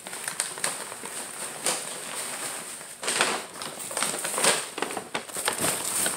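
Stiff paper bag rustling and crackling as loose peat moss is tipped out of it into a plastic 5-gallon bucket, with plastic bag crinkling near the end.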